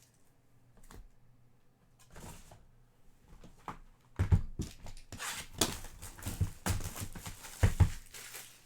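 Trading-card packs being handled and opened: wrappers crinkling and tearing, with sharp knocks of cards and packaging. It starts lightly about two seconds in and grows loud and busy over the second half.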